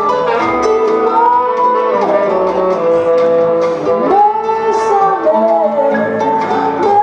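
Music: a sung melody with long held and gliding notes over instrumental accompaniment.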